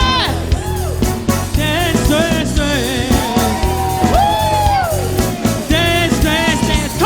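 Live worship band playing a praise song over steady drums, with a lead voice singing long notes that slide up and down.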